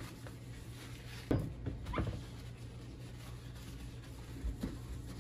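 Paper towel wiped across a glass-top electric stove: a few brief, faint rubbing strokes over a low steady hum.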